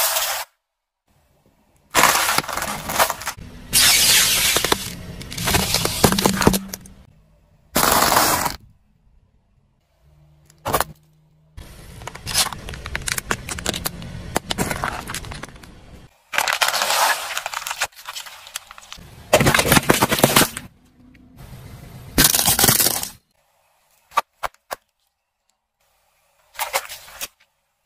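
Car tyre rolling over and crushing objects: repeated stretches of cracking, crunching and breaking, each lasting one to three seconds and ending abruptly, with short silent gaps between them.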